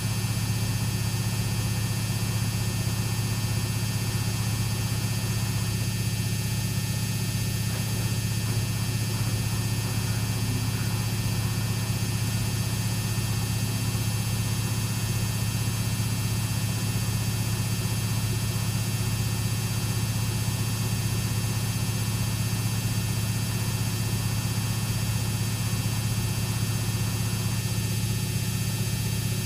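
Samsung WF6700 washing machine's AC brush motor spinning the drum at a steady high speed in the final spin, giving a constant low hum with a fixed high whine over it.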